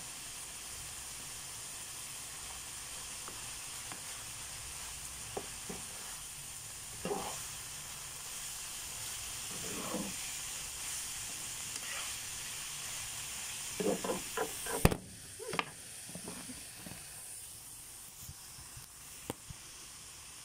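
Shredded cabbage and carrots sizzling steadily in a non-stick frying pan, with a few scrapes and knocks of a slotted spatula as they are stirred; the loudest is a sharp knock a little before the last quarter.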